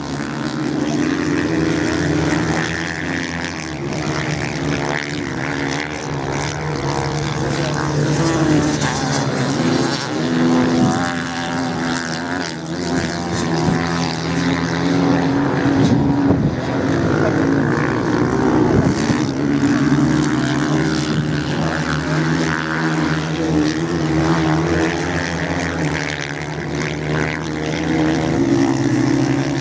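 Several off-road motorcycles racing on a sand track, their engines revving up and down as they accelerate and ease off through the corners.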